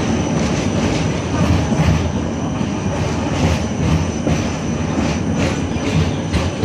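Yevpatoria city tram running along street track, heard from inside the car: a steady rumble of wheels on rails, with repeated clicks and clanks and a thin high whine.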